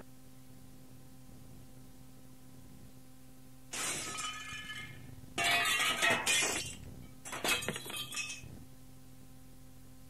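Recorded glass-breaking sound effect: after a few seconds of faint tape hiss and hum, glass shatters three times, with shards tinkling after each crash. The crashes come about four, five and a half and seven and a half seconds in, and the middle one is the loudest.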